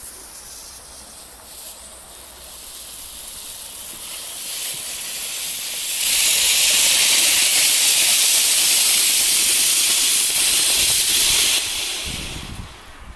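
Panda Sternenzauber volcano firework fountain spraying sparks: a steady hiss that builds over the first few seconds, runs loud and even for about six seconds, then drops off sharply and fades out as the fountain burns down.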